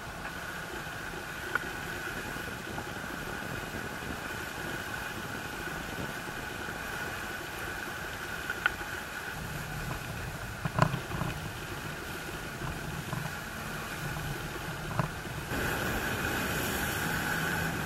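Steady rush of water and wind along a sailing catamaran's hull, with a steady high hum and a few sharp knocks, the loudest about eleven seconds in. Near the end the rush gets louder and hissier.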